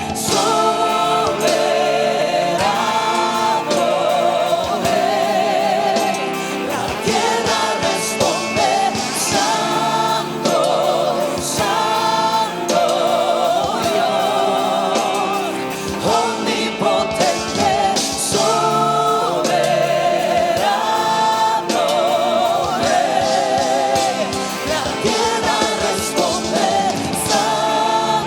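Christian worship band playing with singers holding long, wavering sung notes over the accompaniment.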